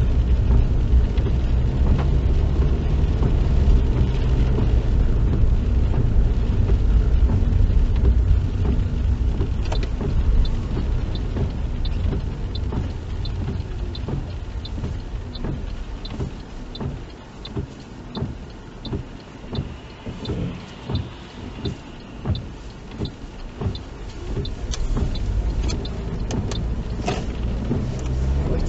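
Car interior: road and engine rumble easing as the car slows, then the turn indicator ticking steadily, about one to two ticks a second, while the car waits quietly; the engine picks up again near the end.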